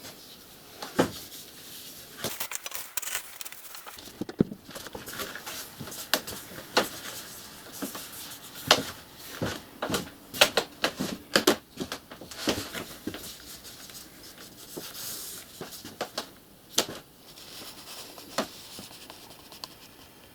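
Hands working on a car headliner panel: irregular sharp taps, clicks and knocks with light rustling and scraping, busiest in the middle.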